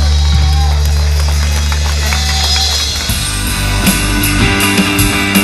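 Live rock band playing loud through a PA, with electric guitars and bass guitar. Sustained low notes ring for about three seconds, then drums with cymbal hits come in, keeping a steady beat.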